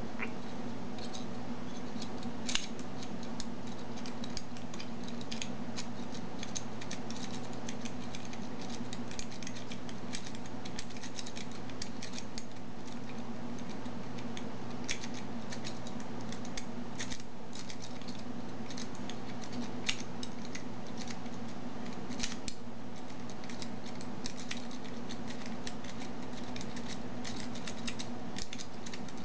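Home-made dimple pick raking the pins inside a dimple euro lock cylinder: a run of light, irregular metallic clicks and scrapes, with a few sharper clicks scattered through.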